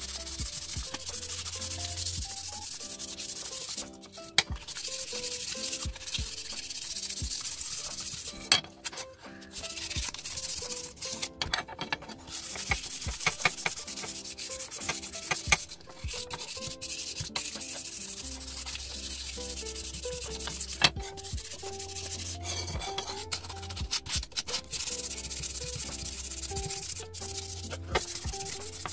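Sandpaper rubbed by hand over the wooden handle of an AK-47 bayonet: continuous scratchy back-and-forth strokes with a few brief pauses, over background music with a melody and a low bass line.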